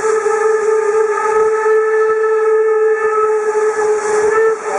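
Steam locomotive whistle blowing one long, steady note that cuts off shortly before the end, over a constant hiss of steam.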